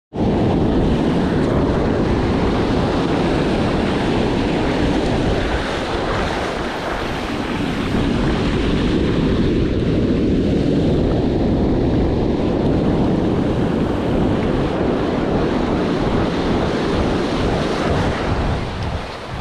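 Ocean surf breaking and washing up the sand right around the microphone, a loud steady rush, with wind buffeting the microphone.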